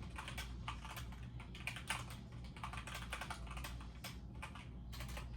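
Computer keyboard being typed on: a quick, irregular run of keystrokes over a steady low hum.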